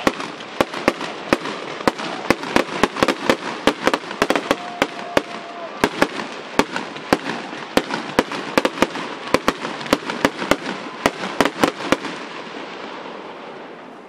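Fireworks going off: dozens of sharp, irregular bangs from bursting shells over a continuous crackle of sparks, thinning out and fading near the end.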